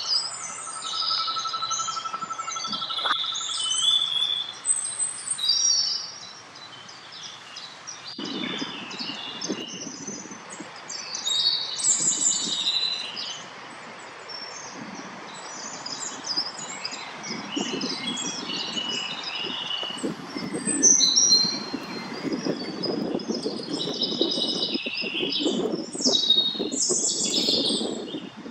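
Several songbirds chirping and singing in short, high phrases throughout. After about eight seconds a low rushing sound of a mountain creek joins, growing louder toward the end.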